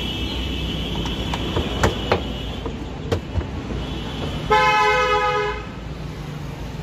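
A vehicle horn sounds once for about a second, past the middle, over a steady low traffic rumble. Before it a high steady tone fades out, and there are a few sharp clicks.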